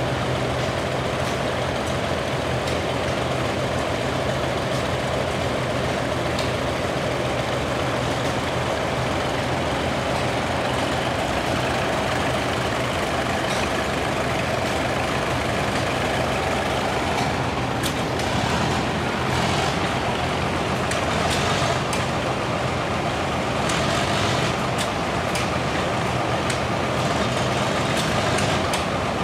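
Several vintage farm tractor engines running steadily. Sharp clicks come in over the engine hum in the second half.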